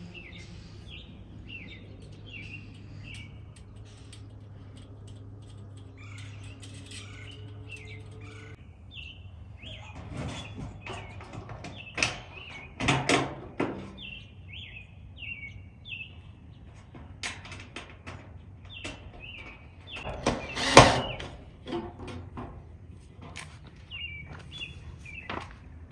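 Birds chirping in repeated short, falling calls, over a steady low hum that stops about a third of the way in. A few sharp knocks and clatters cut through, the loudest about three-quarters of the way in, from the thin galvanized sheet-metal panels of a raised garden bed being handled during assembly.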